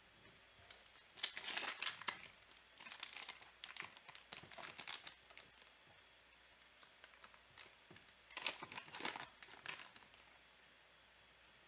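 Foil wrapper of a trading-card pack being torn open and crinkled by hand, in three bursts of crackling about a second in, from three to five seconds, and again around eight to ten seconds.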